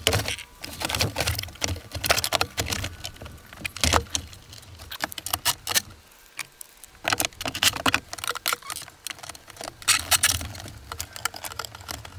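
Irregular clicks, knocks and light rattles of small hard parts being handled and worked on, with a low steady hum underneath.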